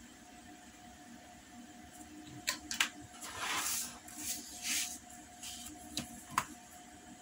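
Stiff paper pattern stock sliding and being turned on a cutting mat, with a few sharp clicks and taps as a steel ruler is picked up and moved. The handling starts a couple of seconds in and comes in short swishes, the longest about a second.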